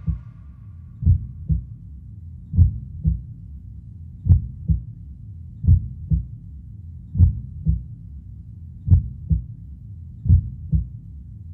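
A slow heartbeat-like pulse: seven pairs of deep thumps, about one pair every second and a half, over a low steady drone.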